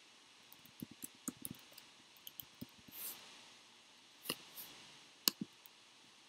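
Faint, irregular clicks and taps of a computer keyboard and mouse, with a brief soft rustle about three seconds in.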